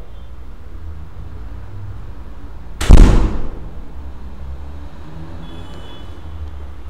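A wooden door slamming shut about three seconds in: one loud bang with a short ringing tail, over a steady low hum.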